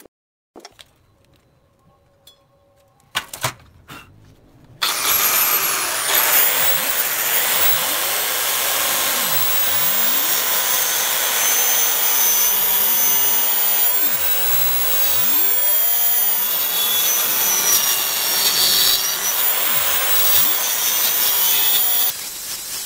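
DCA handheld electric cutter, a small circular saw, starting suddenly about five seconds in after a few light knocks, then running at full speed with a high whine as it cuts grooves into a pine board, its pitch shifting slightly as the blade is loaded. It drops off near the end.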